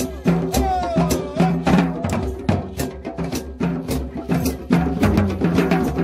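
Street drum circle: several djembe-style hand drums and a drum kit with snare and cymbal beaten together in a dense, steady rhythm.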